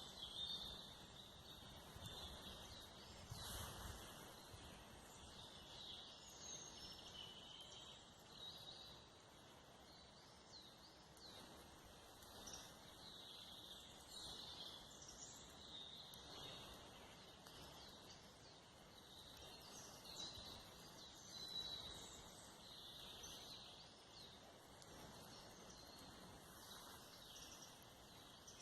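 Faint birdsong: many short chirps and twitters from small birds, over a soft background hiss, with a brief soft rustle about three and a half seconds in.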